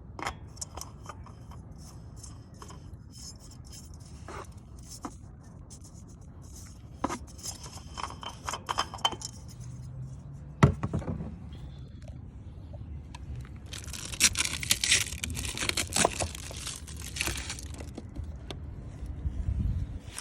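Hand tools clicking, clinking and scraping against metal during work on a mower, with one sharp knock about halfway and a hissing rush of noise for a few seconds later on.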